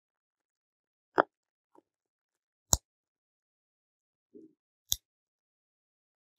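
Bubble wrap bubbles popped one at a time between the fingers: three sharp pops about a second and a half to two seconds apart, and a fourth just at the end.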